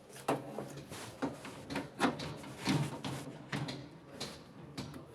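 Irregular series of clicks and knocks as washing machine parts are handled and fitted back together during reassembly.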